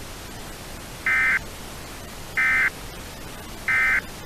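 Emergency Alert System end-of-message signal: three identical short bursts of SAME digital data tones, each about a third of a second long and about 1.3 s apart, over a steady static hiss. The three bursts mark the end of the alert message.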